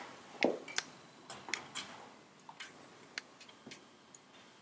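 Irregular light clicks and knocks of a metal spoon and eggs against a stainless steel pot as eggs are put into the dye and stirred, the loudest knock about half a second in.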